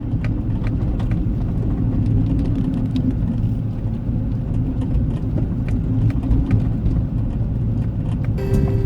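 Steady low rumble of a vehicle on the move, with a few faint ticks. Music comes in just before the end.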